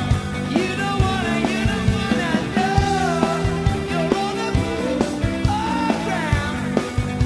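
Rock song: a male lead vocal over electric guitar, bass and a steady drum beat of about two hits a second.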